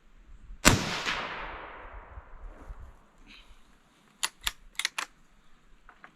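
A single shot from a Savage 93R17 bolt-action rifle in .17 HMR, about 0.7 seconds in, with the report echoing away over about two seconds. A few seconds later comes a quick run of four or five sharp clicks as the bolt is worked.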